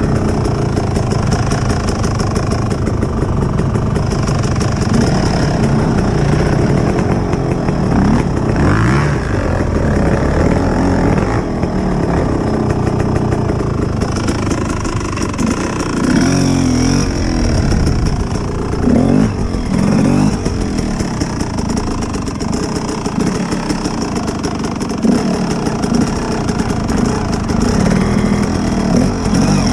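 Enduro dirt bike engine running under the rider, its revs repeatedly rising and falling as the bike rides over forest ground.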